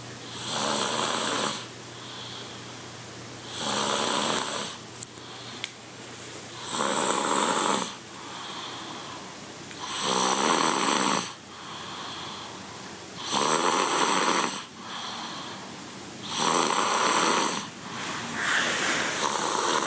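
Regular snoring: six long, loud snores about three seconds apart, with a softer breath between each.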